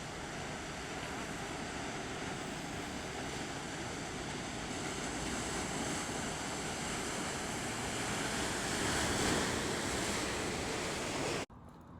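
Ocean surf washing ashore, a steady rush of breaking waves that swells louder towards the end and then cuts off suddenly.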